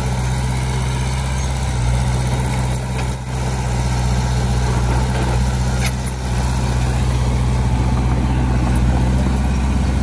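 Heavy diesel engine of earthmoving equipment running steadily at a low, even drone, with a short click about six seconds in.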